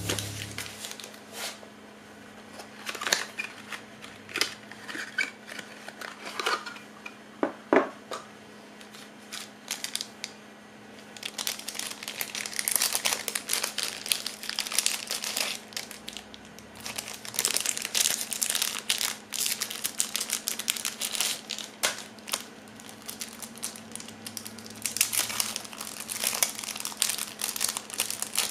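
Plastic packaging of drawing supplies being handled and unwrapped by hand: a few scattered taps and clicks at first, then steady crinkling and rustling of plastic wrap from partway through as pen-nib packets are opened.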